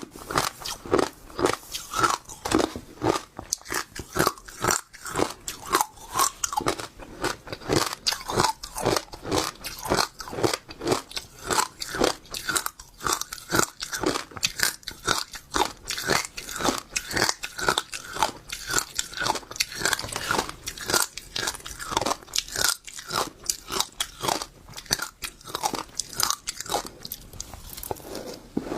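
Seeds being chewed and crunched between the teeth, close to the microphone. A steady run of sharp crunches comes at a few per second without a break.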